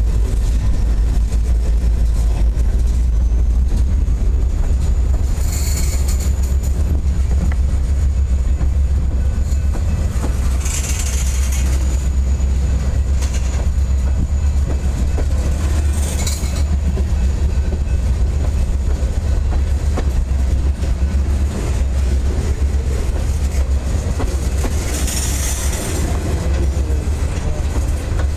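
Freight train's covered hopper and tank cars rolling past close by: a steady low rumble of wheels on rail, with four brief high-pitched squeals spread through the passage.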